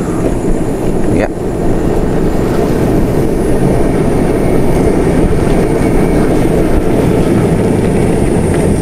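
Motorcycle riding along: a steady engine drone mixed with heavy wind rumble on the microphone.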